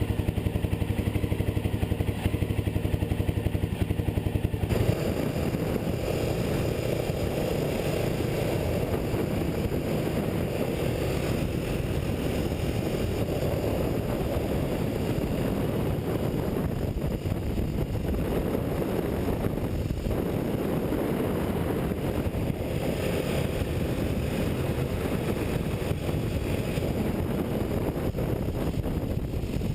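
Honda XR600R's freshly rebuilt single-cylinder four-stroke engine running through an easy break-in ride on new piston rings. It holds a steady note at first, then about five seconds in it changes abruptly to a rougher, noisier running sound that stays steady.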